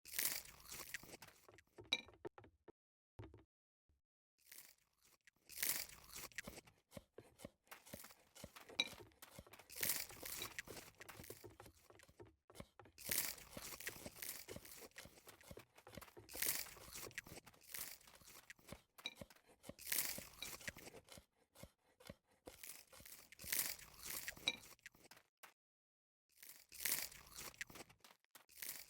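Close-miked eating: repeated crisp crunching and chewing of food, with a few faint clinks and short pauses between bites.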